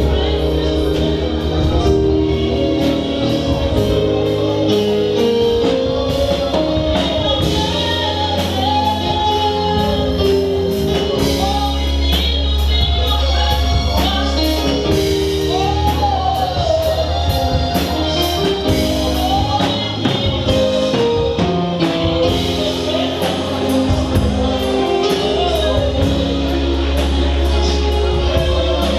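Gospel song with singing over a band: held chords, a steady bass and a regular drum beat.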